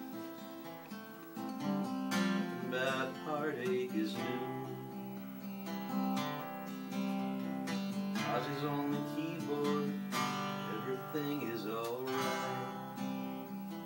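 Acoustic guitar strummed through a slow folk song, with a man singing over it in three short phrases.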